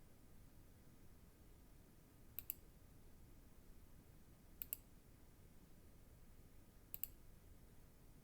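Computer mouse clicking: three faint quick double clicks about two and a half seconds apart, over near-silent room tone.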